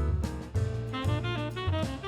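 Jazz music: a saxophone playing a moving melody over bass and a drum kit.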